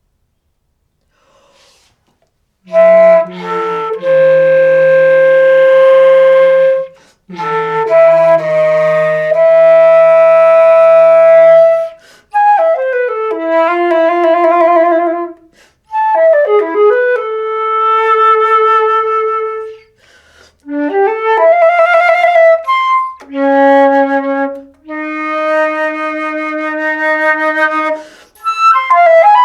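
Solo flute playing a contemporary piece. It comes in about two and a half seconds in after silence, then plays long held notes and quick runs in short phrases with brief gaps between them. A lower steady tone sounds beneath the first two long notes.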